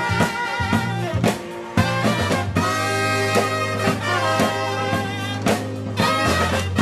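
Jazz band music in a swing style, with horns over a drum kit keeping a steady beat.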